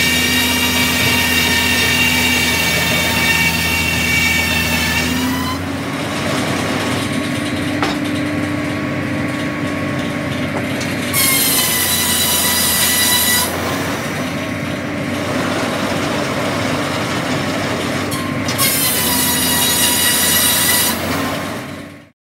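KARA mobile circular sawmill with its large circular blade cutting through a pine log. The blade gives a high ringing whine during three cuts, the first long and the next two shorter. Between the cuts the machinery runs on with a lower steady hum, and the sound cuts off suddenly at the end.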